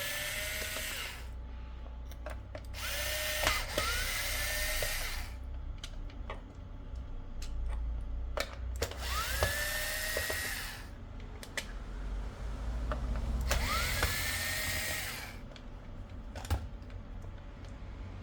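Small handheld electric screwdriver or driver run in four bursts of about two seconds each. Its motor whine rises quickly and then holds steady, as screws are backed out to open the nail drill's casing. Light clicks between the bursts.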